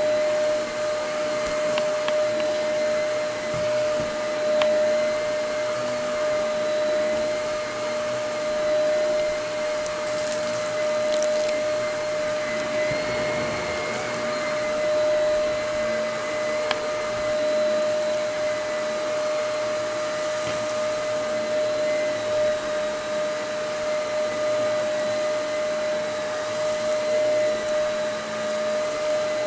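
Small upright vacuum cleaner running steadily on carpet, its motor giving a constant whine over the rush of suction. A couple of sharp clicks come about ten seconds in.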